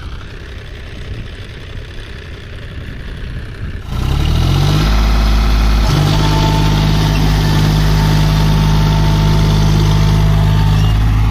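John Deere 5050D tractor's three-cylinder diesel engine running at low revs. About four seconds in it is revved up sharply and then held at high revs under heavy load as the tractor drives itself out of deep mud.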